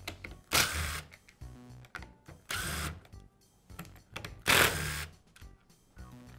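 Cordless driver spinning in three short bursts of about half a second each, roughly two seconds apart, as it backs screws out of a string trimmer's plastic housing.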